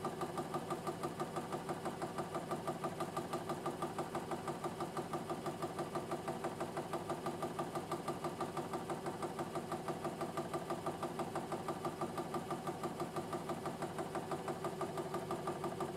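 Half rhombic drive Stirling engine with a 3D-printed drive, running steadily with an even, rapid mechanical beat.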